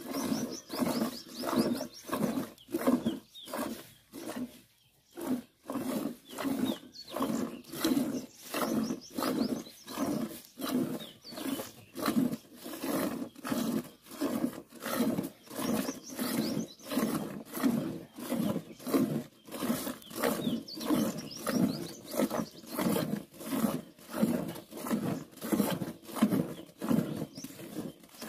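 Hand-milking a cow into a steel bucket: streams of milk squirting into the pail in an even rhythm of about two strokes a second, with a short pause about four seconds in.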